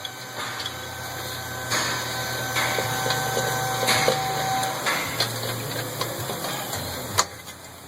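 Metal clicks and handling noises as a front wheel bearing hub assembly is wiggled onto the axle and its mounting bolts are started, over a steady low hum. A sharp click comes about seven seconds in.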